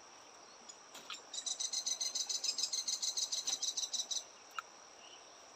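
Steady, high-pitched insect drone, with a loud rapid chirping trill of about nine pulses a second that starts about a second in and stops after about three seconds.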